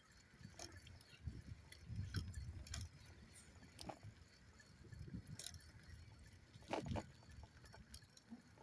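Wind buffeting the phone's microphone on a moving bicycle, an uneven low rumble, with scattered clicks and rattles from the bike and the phone. The loudest rattle comes about seven seconds in.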